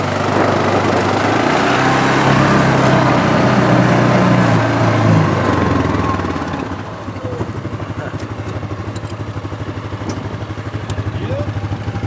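Off-road side-by-side's engine running under throttle as it drives along a sand trail, with a haze of wind and tyre noise. About six seconds in it eases off to a quieter, steady pulsing run at low speed.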